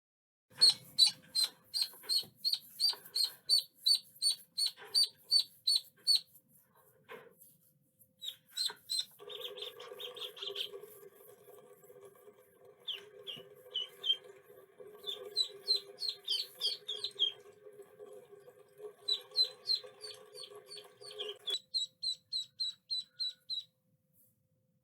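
Ducklings peeping: short, high chirps in quick runs of about three a second, with short pauses between runs. A steady hum runs underneath through the middle stretch and cuts off a few seconds before the peeping stops.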